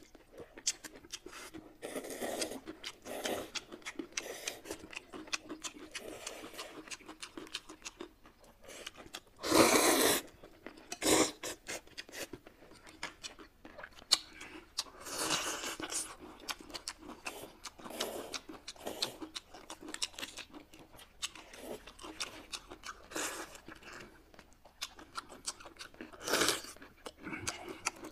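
Close-miked eating: noodles slurped and chewed, with crunching bites and many small clicks and smacks. The loudest sound is a slurp of about a second, roughly ten seconds in, with another shorter one near the end.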